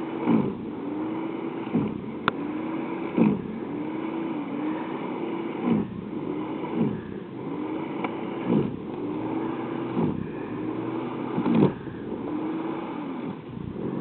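Small snow thrower running steadily, its motor pitch dropping sharply each time it bites into the snow and climbing back as it clears, about every one to two seconds. Several of the bites come with a brief sharp knock.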